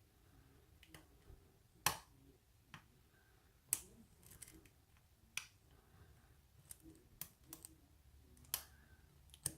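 Lock pick and tension wrench working the pins of a pin-tumbler padlock: about a dozen sharp, irregular clicks, the loudest about two seconds in.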